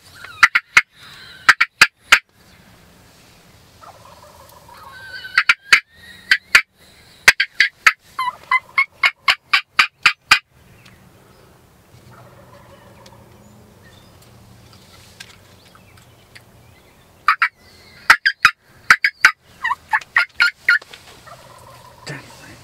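Wild turkey gobbler gobbling repeatedly: loud, rapid rattling gobbles in several runs, with a long pause in the middle.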